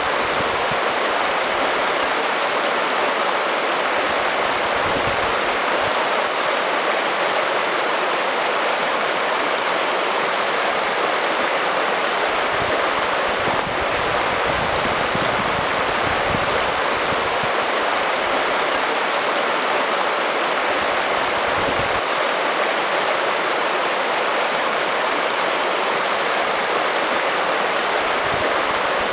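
Chalk Creek, a shallow alpine creek, rushing and babbling steadily over a rocky streambed.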